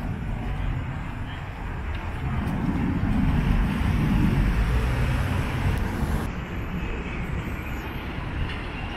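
City street traffic noise at an intersection: a steady rumble of passing cars, swelling louder about three to five seconds in as a vehicle goes by.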